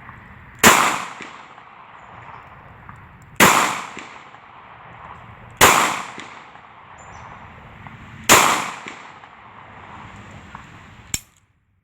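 Ruger LCP .380 pocket pistol firing 95-grain Perfecta .380 ACP rounds: four single shots spaced about two to three seconds apart, each a sharp crack that dies away quickly. A brief sharp click near the end.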